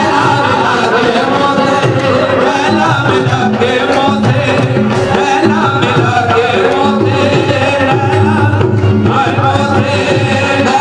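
Live qawwali: voices singing over tabla and harmonium, loud and continuous.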